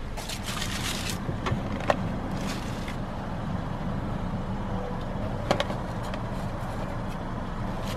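Crumpled paper napkins and wrappers rustling as they are pulled out of a car door pocket, with a few light clicks and knocks, over a steady low hum.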